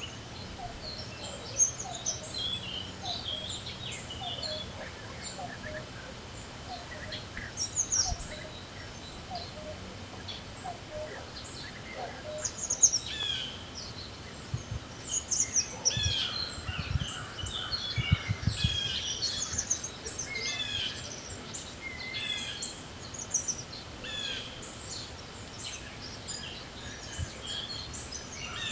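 Several songbirds singing and calling in a spring dawn chorus, short chirps and trills overlapping, thickest in the second half, over a steady background of wind noise. A few low thumps come a little past halfway.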